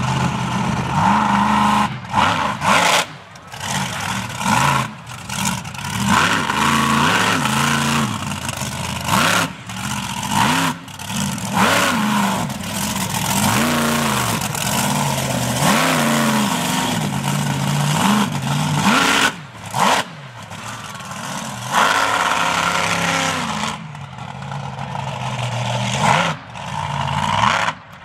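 Monster truck engines revving hard again and again, the pitch climbing and falling with each blip of the throttle, with a few abrupt cuts in the sound.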